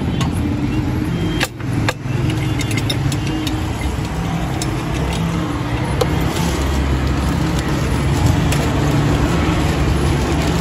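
Steady road traffic: the engines of passing vehicles make a continuous low hum, with a few light clicks and crinkles on top.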